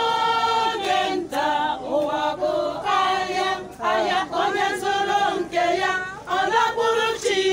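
Church choir of men and women singing, holding notes in short phrases with brief breaks between them.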